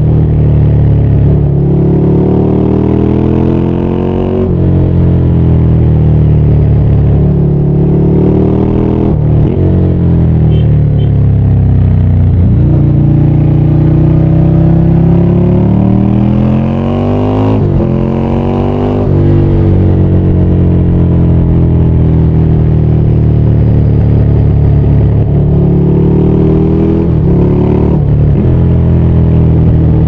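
Ducati Scrambler 800's air-cooled L-twin engine under way, its pitch climbing as it accelerates and dropping sharply several times at gear changes. Between the climbs it falls away slowly as the bike slows.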